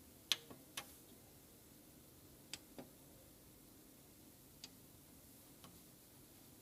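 Plastic keys on a Canon LBP162DW laser printer's control panel clicking under a fingertip: about six faint, separate presses, the first two close together, then single ones a second or two apart.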